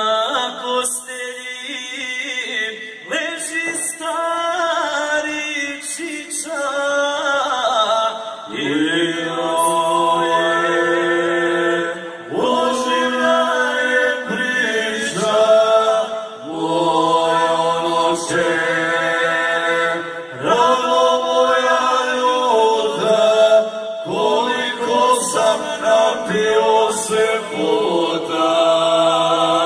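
Three men singing a Krajina folk song unaccompanied, in close harmony with long held notes. One voice leads at first, and the others join with a low part about eight seconds in. The phrases break off every few seconds.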